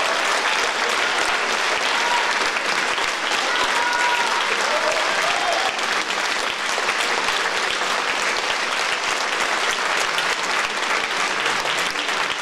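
Theatre audience applauding, a dense, steady clapping that holds at an even level throughout.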